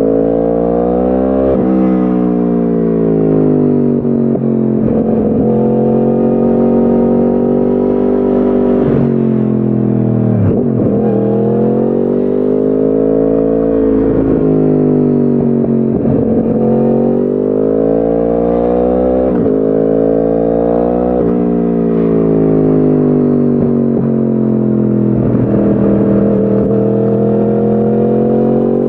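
2010 Yamaha R1's crossplane inline-four running through a decat Akrapovic exhaust, riding along with the engine note climbing under throttle and dropping again every few seconds as it shifts gear or rolls off.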